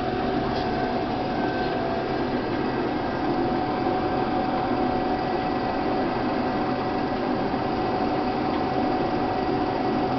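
1991 Case IH 1680 combine running steadily: an even mechanical drone with a constant hum and no change in speed.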